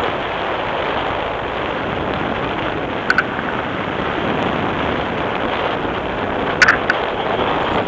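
Steady wind rushing over the microphone of a camera carried in flight under a tandem paraglider. A pair of brief clicks about three seconds in, and a few more near the end.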